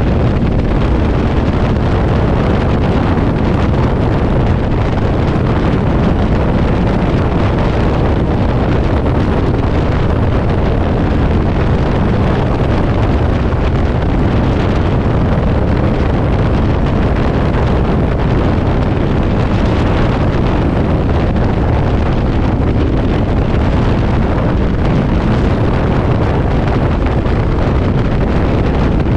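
Strong wind rushing over the microphone on a moving Yamaha V-Star motorcycle in 40 mph gusts, a loud steady low rush with the bike's running engine mixed in beneath.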